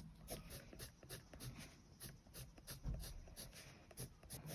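Soft-core coloured pencil shading on paper: faint, quick back-and-forth strokes, several a second, as one colour is layered over another to blend.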